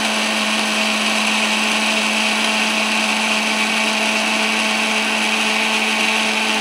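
Electric blender running at a steady speed, blending milk with sugar, red sharbat syrup and a few almonds to crush the almonds.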